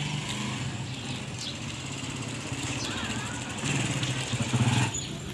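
An engine running steadily, swelling louder near the end, with birds chirping.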